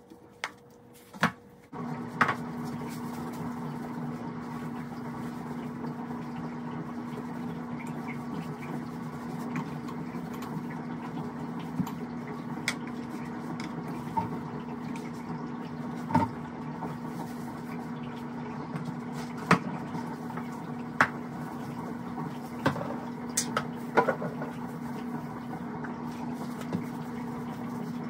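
A steady hum with one constant low tone starts about two seconds in and carries on, with scattered sharp knocks and clicks of bottles and cleaning things handled on a bathroom counter.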